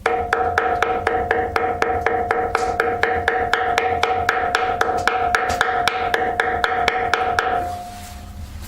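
Ball-peen hammer tapping lightly and quickly on gasket sheet laid over a casting, about four or five taps a second with a steady ringing note beneath them, stopping near the end. This is the gasket being cut by tapping it against the edge of a bolt hole in the casting.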